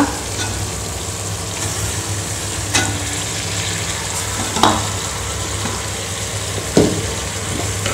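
Tomato-onion masala sizzling as it fries in a pot, while raw chicken leg pieces are dropped in, with three short clunks about 3, 5 and 7 seconds in. A steady low hum runs under it.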